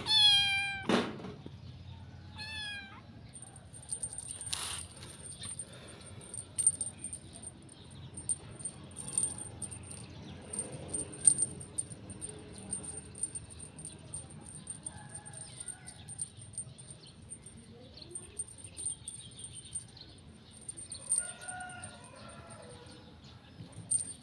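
A domestic cat meowing: one loud, drawn-out meow right at the start and a shorter one about two and a half seconds in, then scattered clicks and rustles with a few fainter, shorter meows later on.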